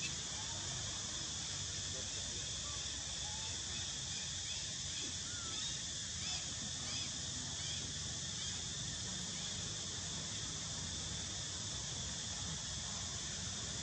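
A steady high insect drone over a low rumble, with a few faint short chirps around the middle.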